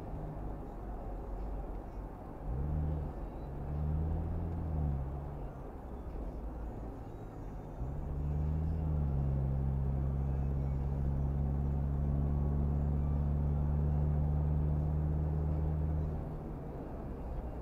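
Low-pitched siren on an escort vehicle: two short rising-and-falling whoops, then a quick rise into a long steady tone held for about eight seconds that cuts off suddenly, over steady road noise.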